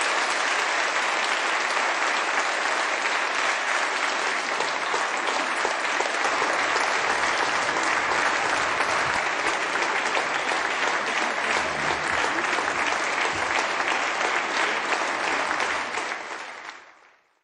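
Large audience applauding steadily, a dense sustained clapping that fades out near the end.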